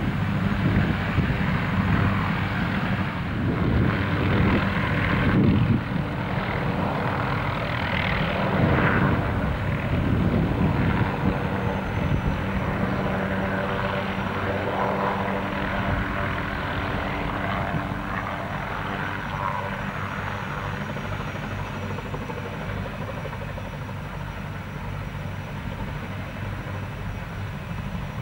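Rotors and turboshaft engines of low-flying Mi-2 and MD500 helicopters: a steady rotor beat with an engine hum, loudest in the first half and slowly fading.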